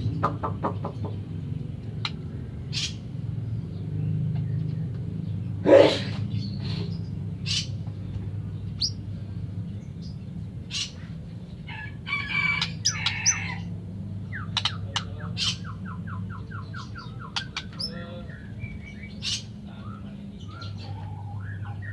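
White-rumped shama (murai batu) calling: scattered sharp, high notes, a short burst of varied song about 12 seconds in, then a fast run of repeated notes. A steady low hum runs underneath.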